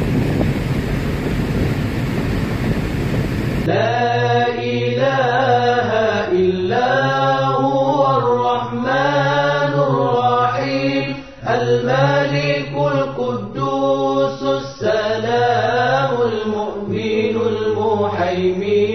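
For the first few seconds, road and wind noise inside a Toyota sedan coasting in neutral at about 100 km/h. It then cuts abruptly to a voice singing a slow devotional chant in long, wavering held notes, phrase after phrase, which fills the rest.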